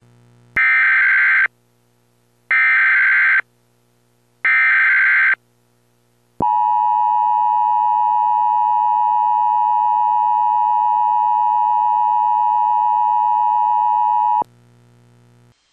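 Emergency Alert System header: three screeching digital data bursts of about a second each, one second apart, followed by the steady attention tone held for about eight seconds, which cuts off sharply. Together they signal the start of an emergency alert broadcast.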